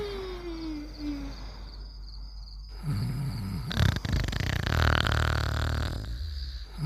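Looped cartoon snoring sound effect. It opens with the tail of a falling whistle on the out-breath; about three seconds in comes a rumbling snore, followed by a long, raspy, hissing exhale lasting about two seconds.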